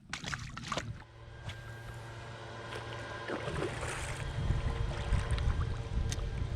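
A few clicks and rustles of handling in the first second, then a motorboat's engine drones with a steady hum and grows louder.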